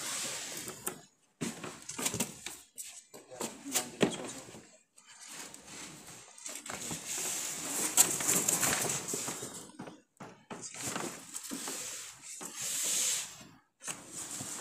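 Cardboard packaging and paper wrapping rustling and crinkling as a wooden tabletop is pulled out of its box and turned over, with a few sharp knocks, the loudest about eight seconds in.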